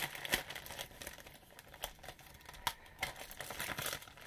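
Bubble wrap and plastic bag crinkling as they are pulled open and unwrapped by hand, with a couple of sharper crackles, one soon after the start and one a little past halfway.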